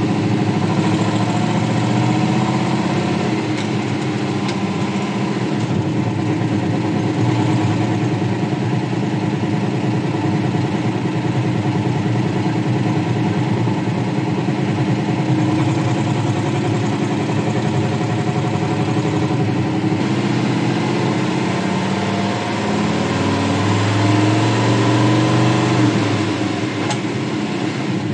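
A 1962 Ford F-350's engine running as the truck drives, heard from inside the cab. Near the end it pulls harder, rising in pitch and getting louder for a few seconds, then drops back.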